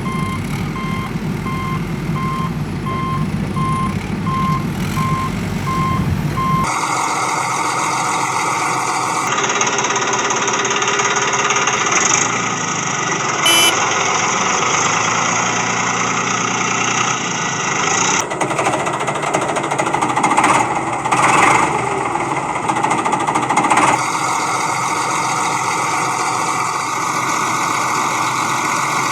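Heavy-machinery sound effects: a reversing alarm beeps steadily over a low engine rumble, then about seven seconds in it cuts abruptly to louder, noisier engine and machinery sound that switches several more times at hard cuts.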